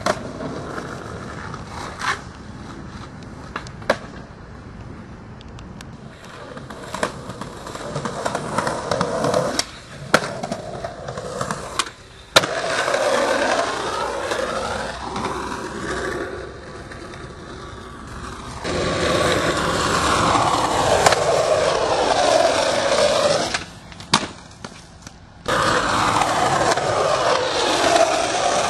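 Skateboard wheels rolling over rough concrete, with sharp clacks of the board. The rolling noise starts and stops abruptly several times where separate takes are cut together.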